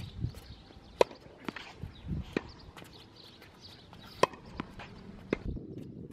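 Tennis ball struck by a racket in a rally on a hard court: sharp pops, the loudest about a second in and about four seconds in, the second an overhead. Fainter knocks fall between them.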